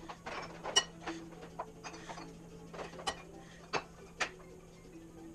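Metal serving tongs and dishes clinking and tapping against ceramic bowls while zucchini noodles and cherry tomatoes are served: about five sharp clinks, the loudest a little under a second in.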